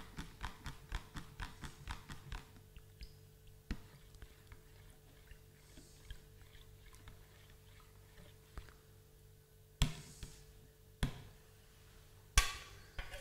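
A spoon stirring molasses into water in a plastic measuring jug, clicking against the jug's sides about three times a second at first, then softer and sparser. Three sharper knocks come near the end.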